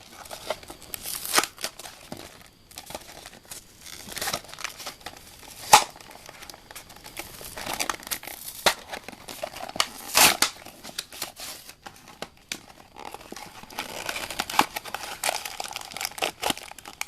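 A toy's cardboard box with a clear plastic window being opened and pulled apart by hand: irregular crinkling and tearing, with sharp plastic snaps now and then.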